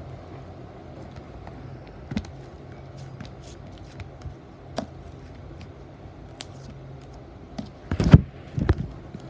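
Hands squishing and stretching thick slime, with scattered small crackles and pops, then two louder squelching thuds near the end, over a steady low hum.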